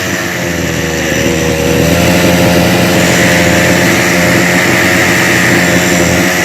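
Rovan large-scale RC car's two-stroke gas engine running at a steady speed.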